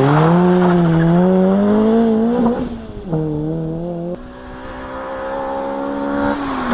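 Toyota 4A-GE 1.6-litre twin-cam four-cylinder engine accelerating. Its pitch climbs, drops sharply at a gear change about two and a half seconds in, then climbs again. From about four seconds it holds a steadier, quieter note that slowly builds.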